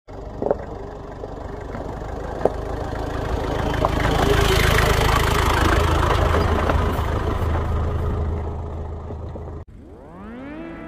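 Nissan Terrano 2.7's diesel engine running with a steady low rumble and a rushing noise that builds louder over the first few seconds and eases off, with a few sharp knocks. About a second before the end it cuts off suddenly and music begins with a rising sweep.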